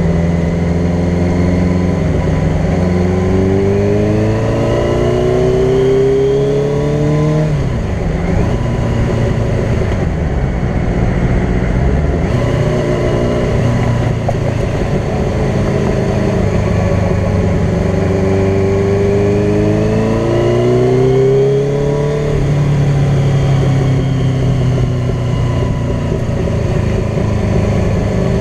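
Sport bike engine heard from on board at highway speed. It climbs in pitch through the revs and drops back sharply twice, with a third climb starting near the end, over a steady rush of wind and road noise.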